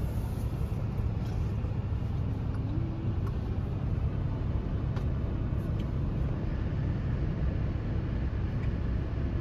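Pickup truck engine running in a low, steady rumble, heard from inside the cab.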